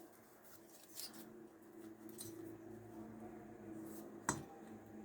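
Faint handling of small chainsaw engine parts as the cylinder is fitted by hand, with a sharp click about four seconds in, over a steady low hum.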